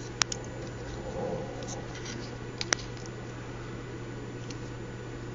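Quiet room tone over a steady low hum, with a few faint small clicks of a jumper wire being handled on a breadboard: a couple near the start and one more a little before halfway.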